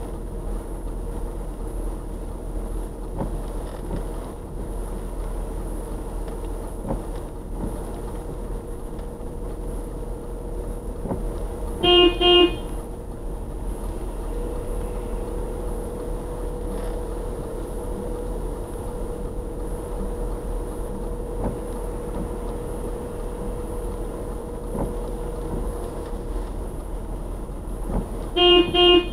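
Car horn giving short toots: two quick toots about twelve seconds in and a quick burst of toots near the end, over the steady low hum of a car crawling at walking pace on a wet road, heard from inside the cabin.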